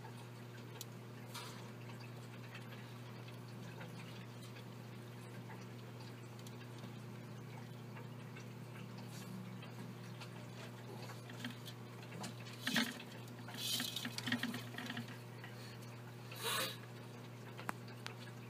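Small hamsters scrabbling in a plastic exercise wheel and straw bedding: faint scratching and rustling, with a few louder clusters of scratches in the second half, over a steady low hum.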